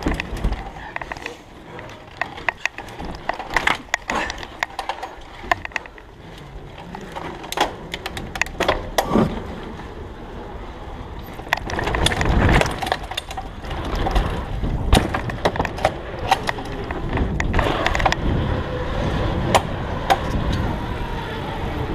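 Mountain bike ridden fast over wooden ramps and plywood track: tyre rumble with frequent clacks and rattles from the bike, louder and busier in the second half.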